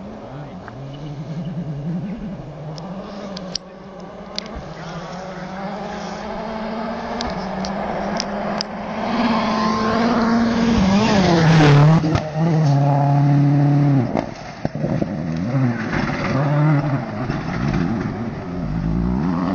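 Ford Focus WRC rally car's turbocharged four-cylinder engine coming up at speed, growing louder until it passes close by about halfway through. It then revs up and drops in pitch several times through gear changes as it pulls away. A few sharp cracks come during the approach.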